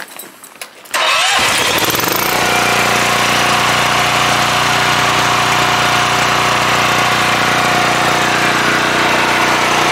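Portable generator's engine starting about a second in, its pitch rising briefly as it comes up to speed, then running steadily.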